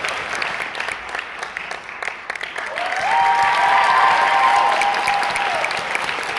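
Small audience applauding at the end of an a cappella set. A long, high whooping cheer glides up about three seconds in, is held, and drops away near the end.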